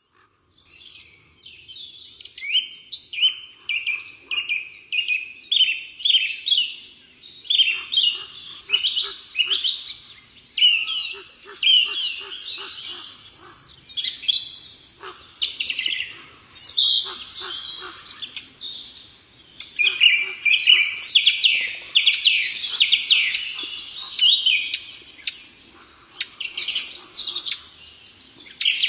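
Small birds chirping and twittering: a dense, nearly unbroken stream of quick, high notes with a few brief pauses.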